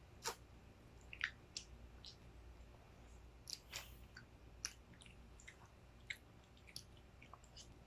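Faint, irregular mouth clicks and smacks of people biting and chewing into whole mangoes with their teeth, skin and all.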